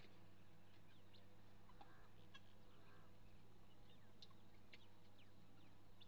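Near silence over a steady low hum. Faint scattered bird chirps and a couple of soft clucks come from aseel chickens pecking about, about two and three seconds in.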